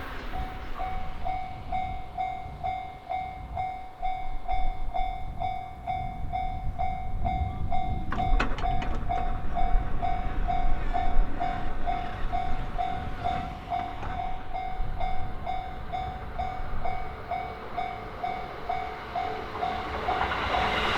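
Japanese railway level-crossing alarm ringing its electronic bell, one steady pitched strike repeated about twice a second. Near the end the rumble of an approaching train swells over it.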